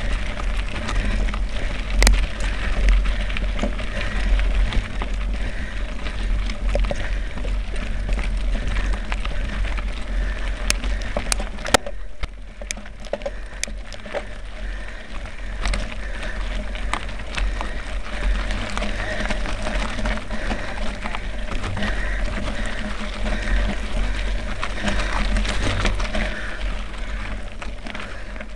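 Mountain bike rolling downhill over loose stony gravel: tyres crunching on stones, the bike and its camera mount rattling, with many small clicks and knocks over a steady low rumble. It eases off a little about halfway through.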